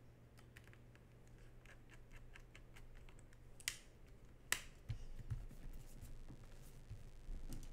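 Plastic clips of a Lenovo ThinkBook 14+ laptop's bottom panel snapping into place as the panel is pressed down by hand: faint light ticks, then two sharp clicks about four seconds in, followed by a few soft, dull knocks of hands pressing on the panel.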